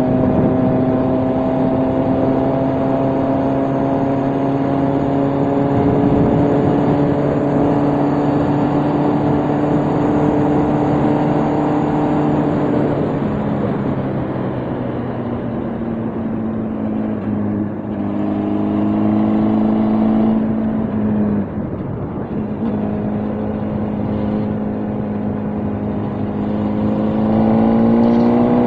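Motorcycle engine running steadily while riding, its pitch climbing slowly at first. About halfway through it drops as the rider eases off, there is a brief dip a little later, and it rises again near the end as the bike accelerates.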